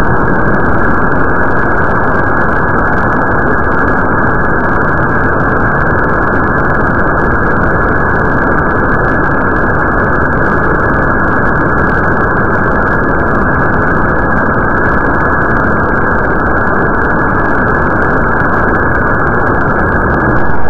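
Klima C6-3 black-powder model rocket motor firing on a static test stand, its exhaust roar played back at one-tenth speed, so it comes out as a steady, deep rushing rumble with no high end.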